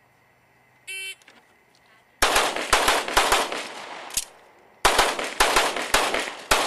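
An electronic shot timer beeps once about a second in. A pistol then fires a rapid string of shots, pauses for about half a second, and fires a second rapid string near the end.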